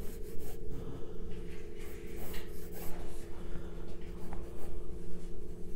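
Pencil sketching on paper: many short, irregular scratching strokes, over a steady low hum.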